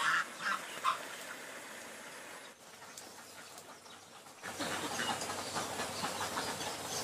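Domestic geese give three short honks in the first second, over a steady outdoor hiss. About four and a half seconds in, the sound cuts to a louder, rougher background noise.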